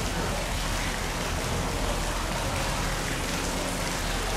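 Steady, even rushing noise of falling water.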